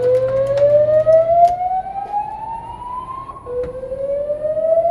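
Hotel fire alarm sounding a slow rising whoop tone. Each sweep climbs steadily for about three seconds, then cuts back and starts again; a second sweep begins about three and a half seconds in.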